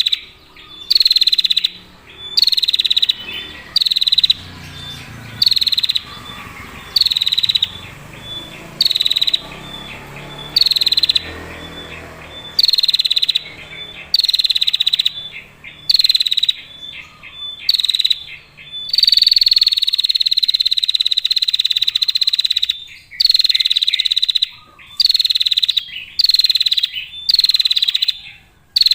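Female prinia (prenjak) giving its long, clear buzzy trill (ngetir) in short bursts about once a second, with one longer unbroken trill a little past the middle.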